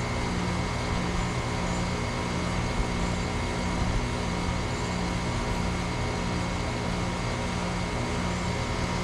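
Bryant Legacy Line 106ANA central air conditioner's outdoor condensing unit running steadily: compressor hum under the rush of the condenser fan.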